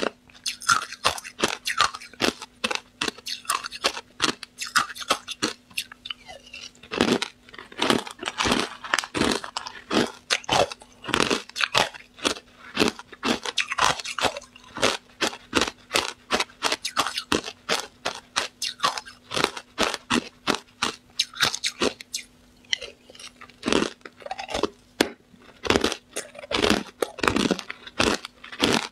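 Hard ice being crunched and chewed close to a clip-on microphone: a dense run of rapid, sharp crunches with a couple of brief lulls.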